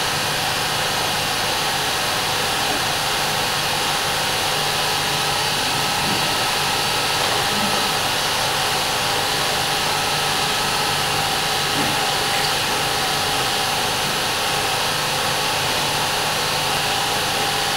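An 8mm cine projector's motor and fan running with a steady whir and a constant hum.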